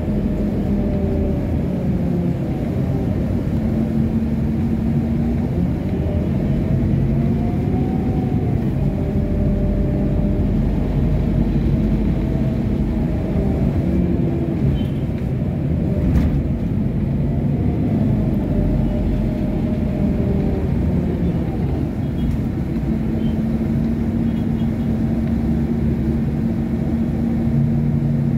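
Articulated Scania city bus under way, heard from inside the cabin: a steady engine and road drone with a whine that rises and falls several times as the bus speeds up and slows.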